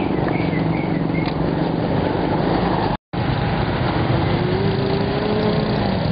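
Street traffic noise with a vehicle engine running close by, its note drifting up and down a little. The sound drops out for a split second about halfway through.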